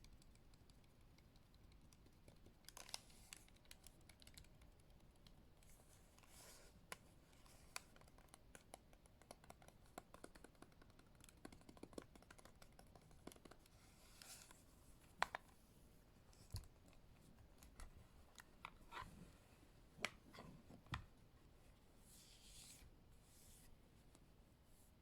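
Tapping and scratching on the plastic casing of a Western Digital My Passport external hard drive: soft, scattered clicks and taps with a few sharper knocks and some brief scraping swishes, all faint.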